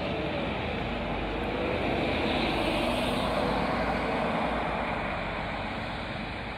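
Setra S 419 UL intercity bus driving past at close range and pulling away, its diesel engine accelerating with a faint rising pitch, the sound slowly receding as it heads off down the road.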